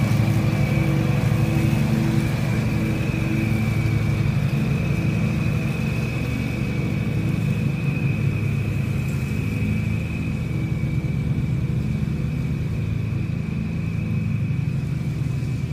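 Riding lawn mower running steadily at mowing speed with its blades engaged: a constant engine hum with a steady high whine above it, slowly growing fainter as the mower drives away.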